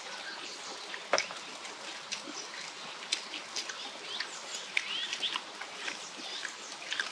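Birds chirping in short rising and falling calls over the steady hiss of a flowing stream, with scattered sharp clicks and taps of chopsticks and eating, one louder click about a second in.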